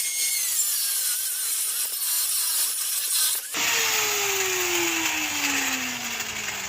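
Angle grinder with a cutoff wheel cutting through a welded-on metal box, its whine dipping and rising under load. About three and a half seconds in it stops cutting, and the whine falls steadily in pitch as the wheel spins down.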